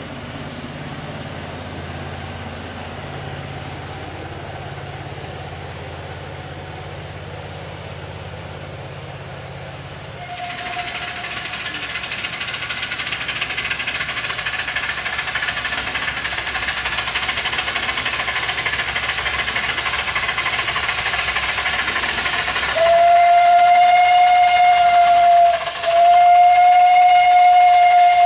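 Small live-steam locomotive approaching with a growing hiss of steam, then blowing its steam whistle. There is a short toot about ten seconds in, and two long, loud blasts near the end.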